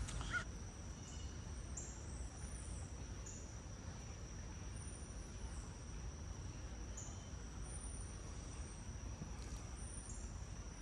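Insects singing in a steady high trill, with short high chirps every second or so over a low steady rumble.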